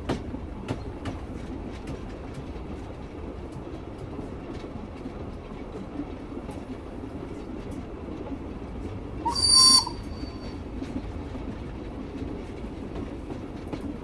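Train carriage interior: a steady rumbling running noise with sharp clicks of wheels over rail joints in the first few seconds. A little past halfway, a brief high-pitched wheel squeal, the loudest sound here.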